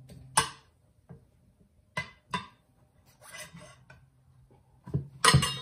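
Steel tire spoon clanking and scraping against a metal mower-wheel rim while levering a tire onto it. There is a sharp ringing clank about half a second in, two more close together around two seconds, a scrape in the middle, and a loud cluster of clanks near the end.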